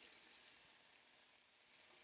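Faint, steady sizzle of butter melting in a hot cast-iron skillet.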